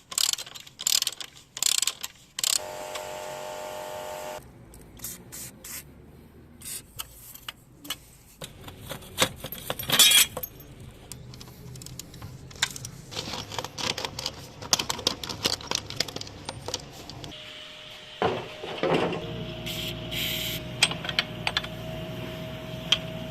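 Hand tools clicking and knocking on metal parts of a motorcycle, in irregular strokes. A short motor-like whir comes a few seconds in, and a steady machine hum starts near the end.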